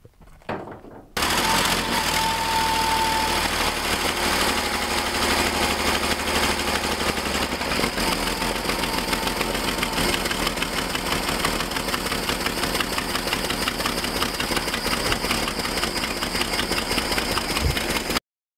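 Old pickup truck's engine running steadily and loudly while driving, starting abruptly about a second in and cutting off sharply near the end.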